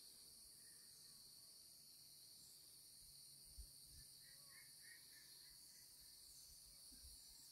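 Faint, steady, high-pitched insect chorus of crickets or cicadas, with a short run of soft bird chirps about halfway through.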